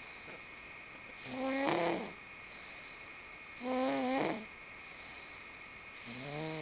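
Snoring: three pitched snores about two and a half seconds apart, each lasting under a second.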